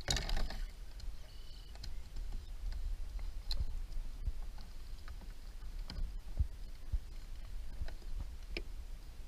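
Water pouring and dripping off a landing net as it is swung up out of the water with a bass in it. Then come scattered light clicks and low knocks as the fish and tackle are handled against the plastic hull of a Big Fish 120 fishing kayak.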